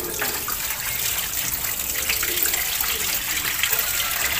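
Water pouring steadily out of a stainless steel bowl of mami egg noodles and splashing into a stainless steel sink as the noodles are rinsed.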